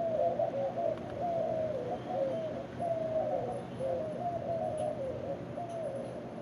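A chorus of birds giving low, wavering calls that overlap without a break.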